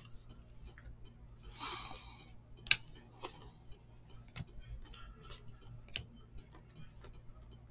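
A stack of glossy football trading cards being flipped through by hand: light clicks and ticks as card edges snap past one another, with a short rustle of cards sliding just before two seconds in and one sharper click a little later.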